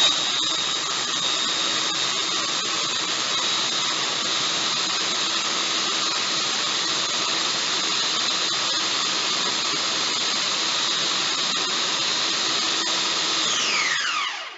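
Countertop food processor motor running at full speed, chopping tomatoes and onion for pico de gallo: a loud, steady whine. It is switched off near the end and winds down with falling pitch.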